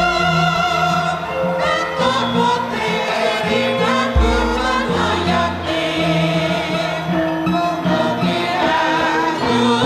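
Javanese gamelan music with a group of voices singing in long held lines. A deep low stroke rings out about four seconds in.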